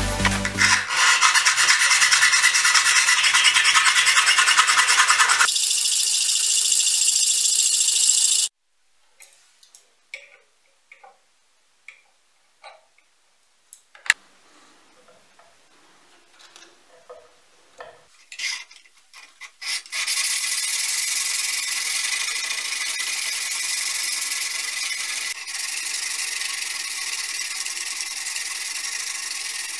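A loud stretch of noise that stops abruptly about eight seconds in. Then small clicks and knocks as the knife blank is set in its jig. From about twenty seconds in, steady rasping as the O1 steel blade's bevel is hand-filed.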